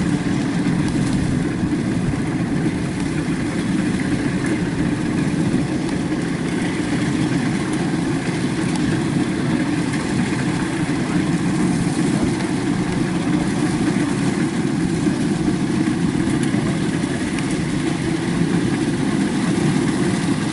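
Kubota DC-93 rice combine harvester's diesel engine running steadily.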